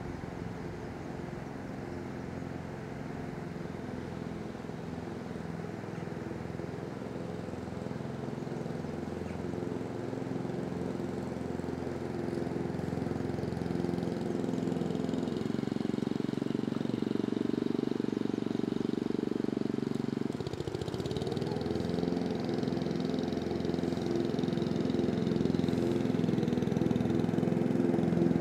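A motor engine running steadily and growing gradually louder, with a brief dip and recovery in pitch about twenty seconds in.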